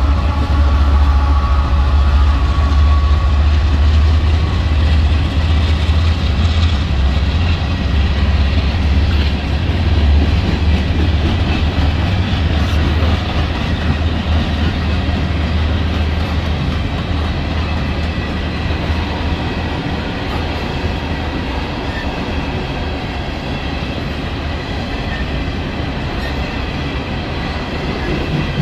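CSX diesel locomotives passing with a deep engine rumble that eases after about ten seconds, giving way to the steady rolling rumble and wheel clatter of a line of open-top coal cars running by on the rails.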